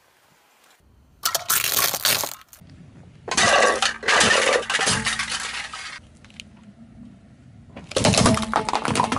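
Car tyre crushing objects on asphalt: three loud bursts of crunching and cracking, the middle one, about two and a half seconds long, as plastic cups are flattened, and the last, near the end, as a coconut is crushed.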